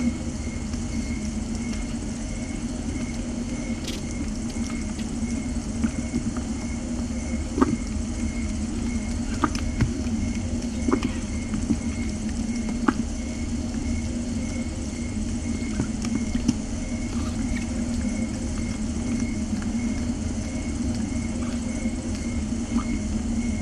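A steady low rumble with scattered faint ticks.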